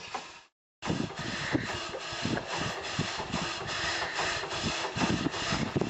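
Small wheeled steam engine running under steam, its exhaust beating evenly at about three chuffs a second, with mechanical clatter over it. The sound drops out for a moment near the start.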